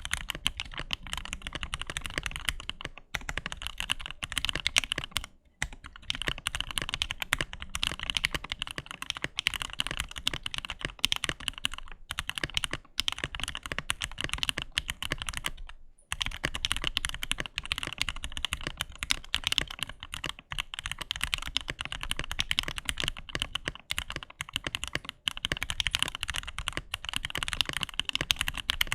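Fast continuous typing on a mechanical keyboard with stock, factory-lubed Gateron North Pole linear switches in a Keychron Q4, a clacky sound with a mix of thocks. The typing pauses briefly a few times.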